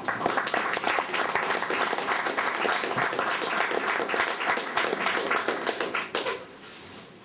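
Audience applauding, a dense patter of many hands that starts suddenly and dies away about six seconds in.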